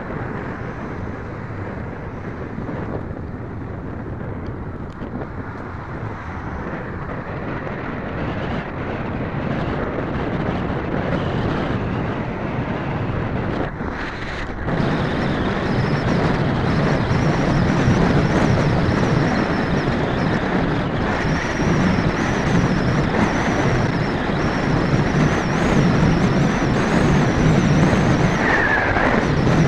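Steady wind rushing over the microphone of a camera on a moving bicycle, mixed with road traffic noise from the lanes alongside. The noise gets louder about halfway through.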